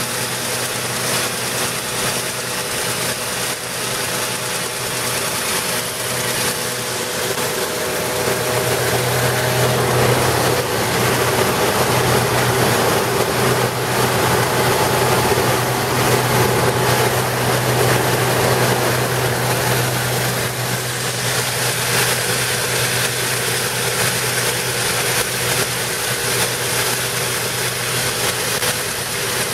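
Stripe Hog line-removal truck at work: its engine and pump running steadily under a dense hiss from the high-pressure water-blasting head and vacuum recovery. It grows louder for a stretch in the middle, then settles back.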